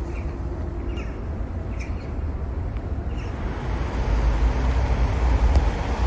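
Outdoor ambience from a handheld phone recording: a heavy low rumble that grows stronger partway through, with a few short bird chirps in the first half.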